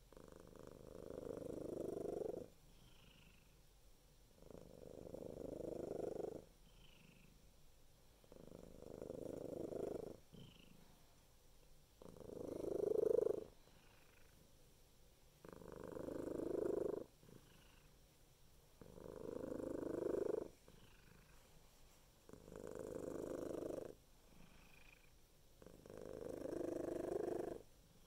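Domestic cat purring loudly close up, in a slow rhythm of about eight long swells. Each swell grows louder for about two seconds and then drops off sharply to a quieter stretch before the next.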